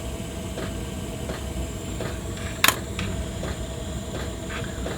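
Steady hiss of a butane gas soldering iron burning, with faint small ticks and one sharp click about two and a half seconds in.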